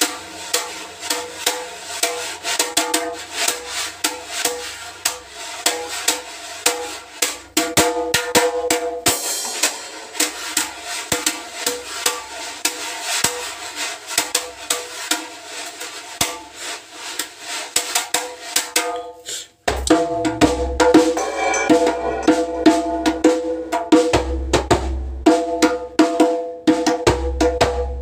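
Djembe played with a wire brush in one hand and the bare other hand: a dense, fast run of light strokes on the skin. About twenty seconds in there is a brief break, and then louder hand strokes with deep bass tones.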